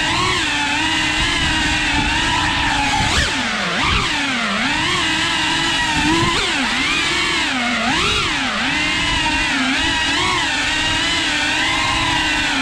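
FPV quadcopter's electric motors and propellers whining, the pitch swinging up and down every second or so as the throttle changes while it weaves through tight gaps.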